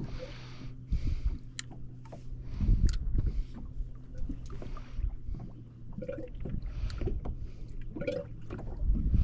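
Water sloshing and gurgling against a small boat's hull, with scattered knocks, and a low steady hum over the first few seconds.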